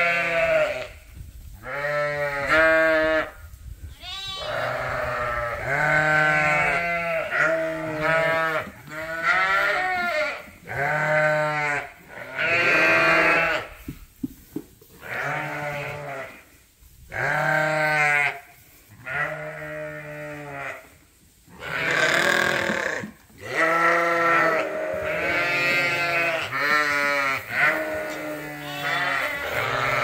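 Ewes and lambs bleating in a barn pen, many overlapping calls one after another, each with a wavering quaver, broken only by a few short lulls.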